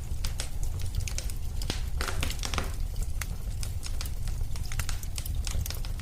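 Wood fire in a fireplace crackling and popping, irregular sharp snaps over a steady low rumble, with a denser flurry of crackling and hiss about two seconds in.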